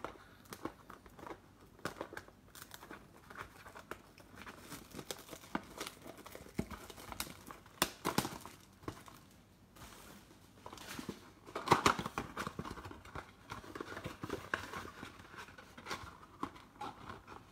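Plastic shrink-wrap crinkling and tearing as a sealed blaster box of trading cards is opened by hand, with the cardboard box and card packs rustling. An irregular run of crackles, with louder tearing about eight and twelve seconds in.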